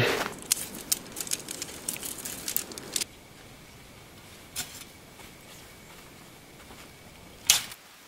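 Scattered small clicks and rustles for about three seconds, then a faint steady hiss broken by a single knock and one short, louder rustle near the end.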